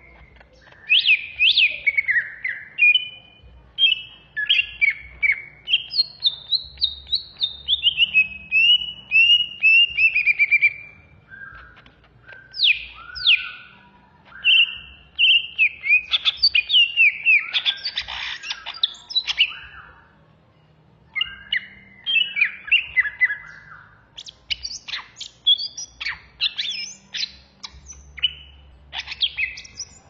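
Greater green leafbird (cucak ijo, Banyuwangi type) singing its loud, frenzied 'ngetrok' song in rapid bursts of sweeping whistles and chattering runs, with brief pauses between bursts. Near the end it turns to quick, sharp notes.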